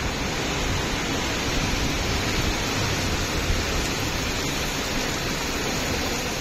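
Heavy rain pouring down as a steady, dense hiss with no breaks.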